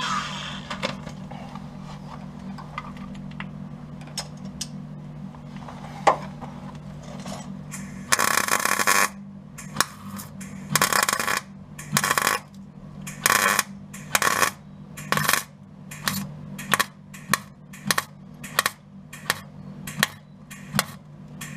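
MIG welder laying a row of short stitch welds along the steel seam of a car's front wing: about a dozen short bursts of crackling arc, roughly one a second, starting after about eight seconds. A steady low hum runs underneath.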